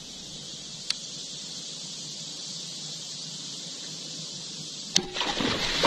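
Crossbow fired at a fish about five seconds in: one sharp snap of the string, followed by splashing in the water. Before that, only a steady faint high hiss.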